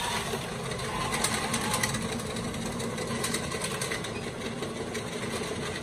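Plockmatic 310 ten-bin paper collator running, taking a sheet from each of its bins: a steady mechanical whir with rapid light clicks throughout.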